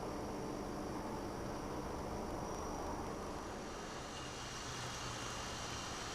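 Steady background hiss and low hum with no distinct events.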